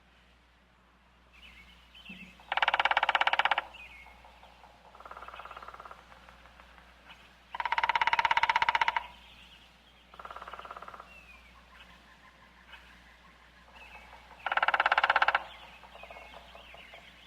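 Woodpecker drumming: three loud rapid rolls of strokes on wood, each about a second long, the middle one the longest. Two fainter rolls fall between them, with faint bird chirps in the background.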